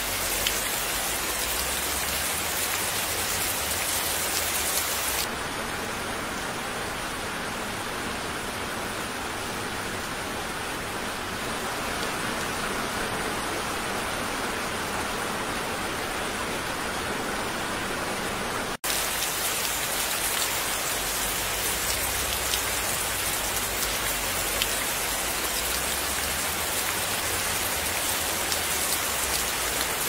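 Steady rain falling. About five seconds in it turns duller and softer. After a brief dropout a little past halfway, the brighter, hissier rain returns.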